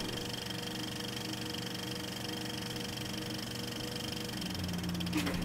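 A steady whirring hum with several held tones under it and a fast, even flutter.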